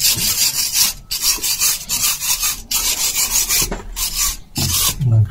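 Harsh rasping, scraping strokes against metal at an off-road Mitsubishi Pajero's front wheel hub, in about four runs of a second or so with short breaks between them.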